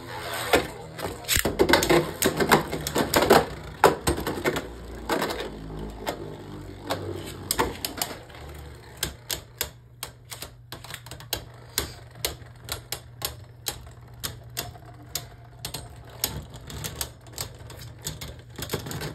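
Two Beyblade Burst spinning tops, Mirage Fafnir and Choz Achilles, battling in a plastic stadium: rapid plastic clacks as they collide, dense and loud for the first eight seconds or so, then sparser, fainter ticks for the rest of the battle.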